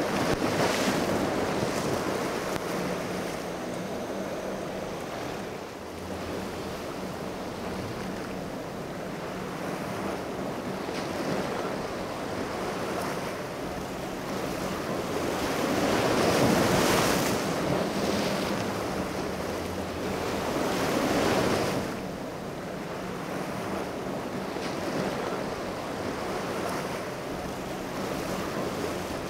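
Rough surf and breaking waves with wind buffeting the microphone. The noise swells loud at the start, again about two-thirds of the way through and once more a few seconds later. Under it runs a steady low hum from the boat's twin Mercury 300 outboard engines.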